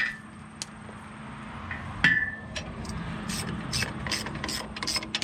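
Metal tools clinking once with a short ring about two seconds in, then a ratchet wrench clicking fast from about three seconds on, drawing the mounting bolts of a rebuilt tractor hydraulic pump down.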